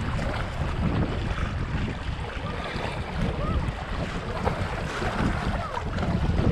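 Wind buffeting the microphone in uneven gusts over the wash of choppy sea water.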